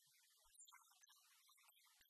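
Near silence: only a faint high hiss.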